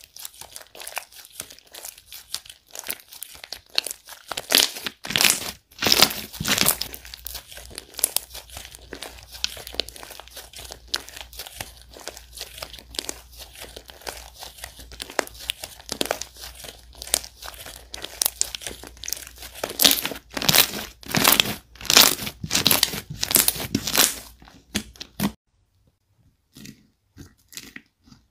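White slime with coloured sprinkles being stretched and folded by hand, giving a dense run of sticky crackles and clicking pops with louder flurries now and then. The crackling cuts off near the end, and a few sparse clicks follow.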